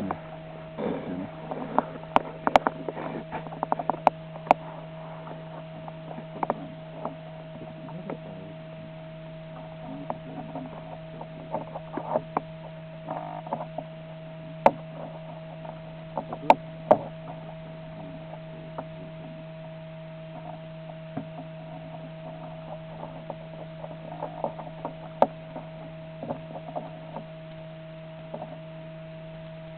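A steady hum made of several fixed tones, broken by scattered sharp clicks and crackles that come thickest in the first few seconds and again about halfway through.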